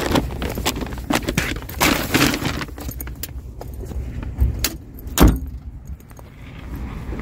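Metal wire shopping cart rattling and clattering as it is pushed across parking-lot asphalt, with a continuous rolling rumble under irregular knocks and a louder bang about five seconds in.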